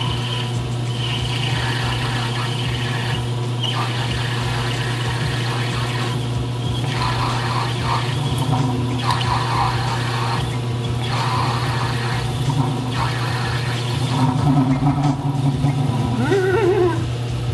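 Homemade concrete metal lathe running with a steady motor hum while an indexable insert takes an aggressive facing cut on C360 brass rod, the cutting noise coming and going in short spells as the tool is fed in. A short wavering pitched sound near the end.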